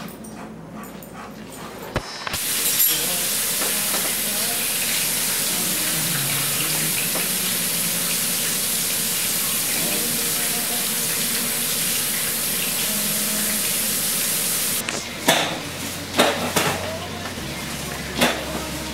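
Kitchen tap running steadily into the sink while salad greens are rinsed under it. The water starts about two seconds in and is shut off about fifteen seconds in. Short clatters and knocks of a bowl and dishes on the counter follow.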